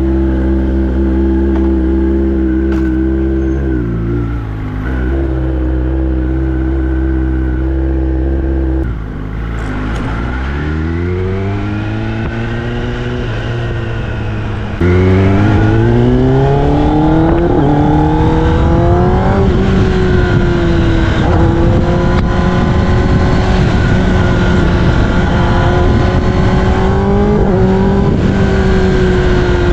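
Kawasaki ZX-10R inline-four with an Austin Racing aftermarket exhaust, running at a steady note, then revving up through the gears with rising pitch sweeps. About halfway it opens up louder, then holds a steady cruising note with small throttle changes.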